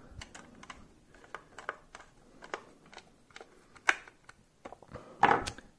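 Small screwdriver turning a screw into the plastic battery cover of a Hot Wheels track booster: a string of light, irregular clicks and ticks, with a louder handling noise near the end.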